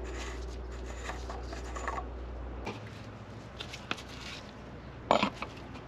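Small handling sounds of an engine's plastic oil filler cap being unscrewed and lifted off by a gloved hand: light clicks and rustles, with a short clatter about five seconds in.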